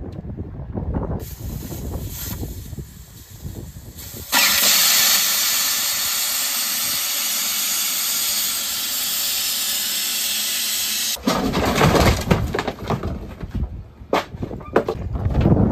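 Pressurised air hissing out of a truck tire as it is deflated. The hiss starts suddenly about four seconds in, holds steady and loud, and stops abruptly about seven seconds later. Knocks and clatter of handling come before and after it.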